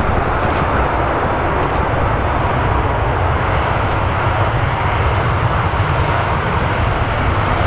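Airbus A380 jet engines running loud and steady on its landing rollout across a wet runway, with a deep rumble underneath.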